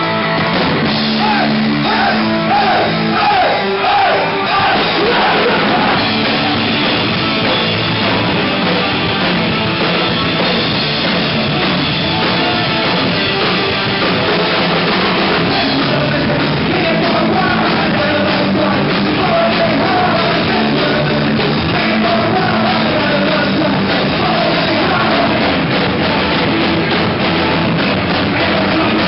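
Punk rock band playing live: shouted vocals over guitar and a drum kit, at a steady loud level throughout.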